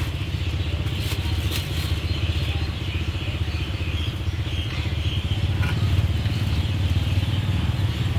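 A small engine running steadily with a fast, even throb. About a second in, a few light clicks and clatters come from a spoon and plastic containers being handled.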